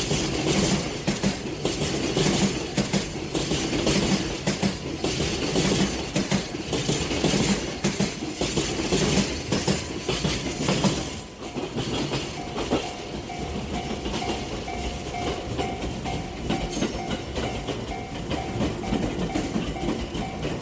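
Container freight train rolling past, its wagon wheels clacking rhythmically over the rail joints. About halfway through this gives way to a quieter, steadier electric commuter train running by, with a faint held tone.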